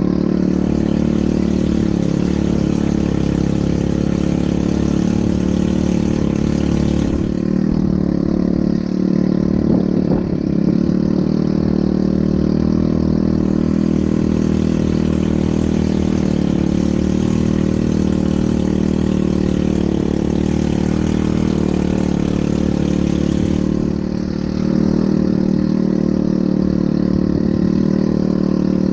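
ATV engine running at a steady speed, its pitch nearly constant, with a slight change in the surrounding noise about a quarter of the way in.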